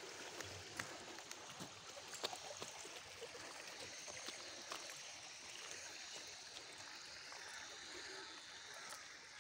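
Faint, steady rush of flowing water, with scattered light clicks.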